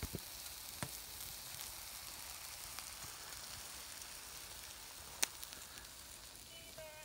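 Breakfast cooking on a small wood-burning camp stove: a steady sizzling hiss with a few sharp pops.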